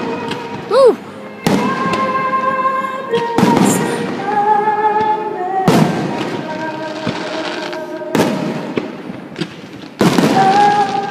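Aerial fireworks shells bursting, five loud booms about two seconds apart, each followed by a rolling echo. Music with long held notes plays underneath.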